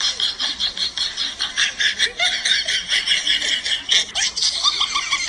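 High-pitched, rapid laughter, pulsing about six times a second without a break.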